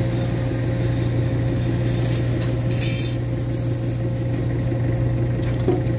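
Forklift engine idling steadily, with a brief light clink about three seconds in.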